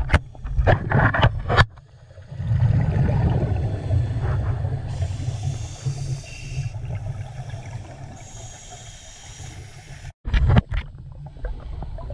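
Scuba diver breathing through a regulator, picked up through the camera's underwater housing: crackling bubble bursts at the start, then a low rumbling exhalation of bubbles, with a hissing breath drawn in twice in the middle and more crackling near the end.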